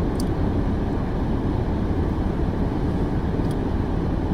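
Steady rushing of a running car's heater fan blowing, over the low hum of the idling engine, with two faint ticks.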